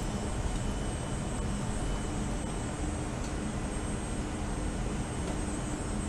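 Steady machine hum of a CT suite's equipment and ventilation: an even drone with a few constant tones over fan-like noise, without change.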